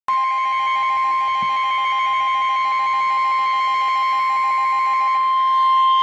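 NOAA weather radio sounding a warning alert: the steady 1050 Hz NWS warning alarm tone that comes before a severe thunderstorm warning, with a rapid beeping of about seven beeps a second over it that stops about five seconds in.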